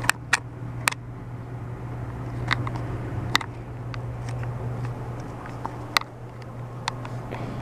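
A steady low hum with about nine scattered sharp clicks and light knocks, typical of household handling noise in a kitchen.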